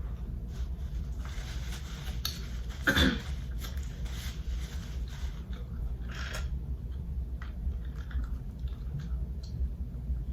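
Close-up eating sounds of someone eating fried chicken tenders: chewing and small mouth clicks over a steady low hum, with one louder, brief mouth sound about three seconds in.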